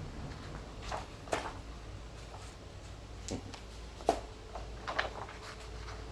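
A hardcover earbook and its disc packaging being handled: a handful of light knocks and clicks of cardboard and paper, spread over a few seconds, the sharpest about four seconds in.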